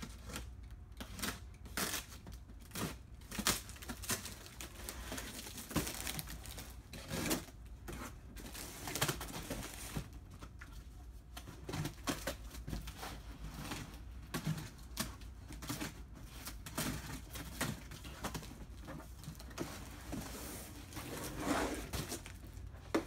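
Cardboard wrapping and brown packing tape being cut and pulled apart by hand: irregular crackling, scraping and tearing with sharp ticks throughout.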